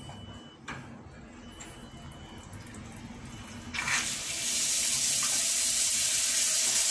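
Quiet at first, then just before four seconds in water gushes suddenly from a Docol quarter-turn faucet as the supply valve is opened with the faucet left open, and runs on as a steady stream splashing into the washbasin. This is the test run after its ceramic cartridge was cleaned.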